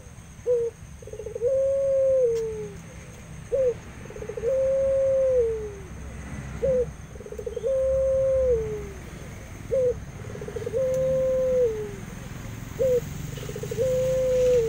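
Barbary dove of the long-cooing puter pelung type cooing five times, about one coo every three seconds. Each coo is a short note, then a rolling stutter, then a long drawn-out note that drops away at its end.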